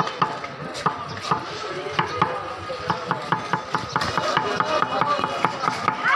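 Kitchen knife chopping cucumber on a round wooden chopping board: quick, uneven knocks of the blade on the wood, about three a second.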